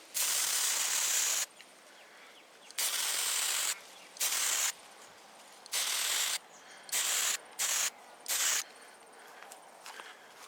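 Aerosol spray paint can sprayed in seven short bursts of hiss, the first about a second and a half long, the rest shorter, with brief pauses between them.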